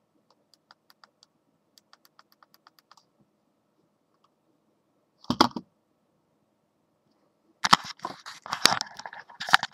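Small plastic camera body and tools handled close to the microphone: a run of faint light ticks, a single knock a little past five seconds in, then loud clattering and rattling near the end.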